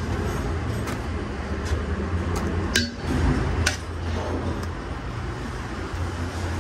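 Kitchen utensils and dishes clinking now and then, about six sharp clinks with one louder one near the middle, over a steady low hum.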